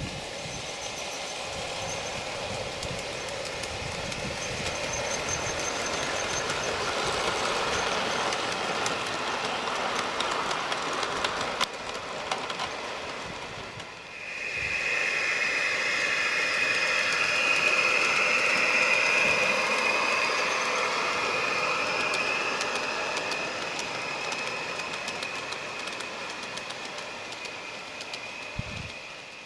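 Garden-railway model trains running on 45 mm gauge track: a steady rolling rush with light clicks of wheels over the rail joints. About halfway through the sound briefly drops, then comes back louder and higher-pitched and slowly fades.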